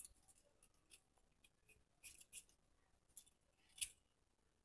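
Faint, crisp strokes of a blade slicing through a peeled raw potato lengthwise into strips. There are a few separate cuts, two close together about two seconds in and the clearest near four seconds.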